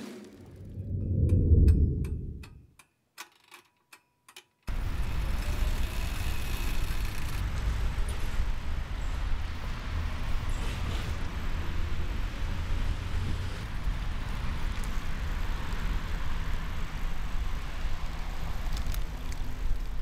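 A low whoosh swells and fades, then a run of sharp ticks comes quicker and quicker. About five seconds in, the steady rumble of a bicycle being ridden on pavement cuts in, with road and wind noise, and carries on.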